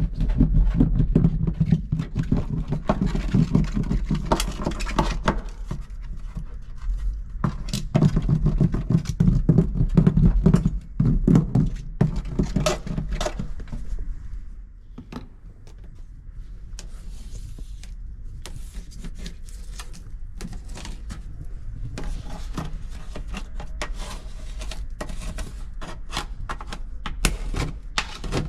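Irregular scraping, rubbing and knocking of hands-on work on a car's metal body panels, as self-adhesive sound-deadening mats are pressed and rolled on. It eases off about halfway through and picks up again with quick taps near the end.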